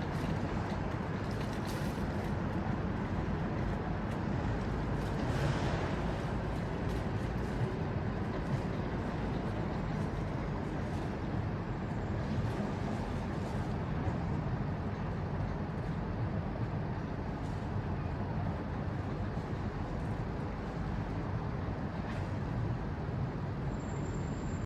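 Steady low rumble and hiss of a sailboat underway, with no let-up and a few faint brief splashes or knocks.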